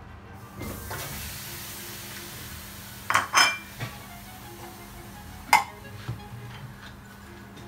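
Kitchen clatter: pork pieces tipped from a plate into a cooking pot with a soft hiss, then sharp clinks of crockery and a bottle on the counter, about three seconds in and again about five and a half seconds in, over background music.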